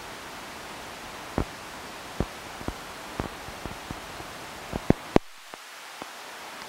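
Steady hiss of a thunderstorm's rain and wind, with about a dozen irregular sharp ticks of drops striking close by, the loudest a little before five seconds in. Just after them the low rumble thins out.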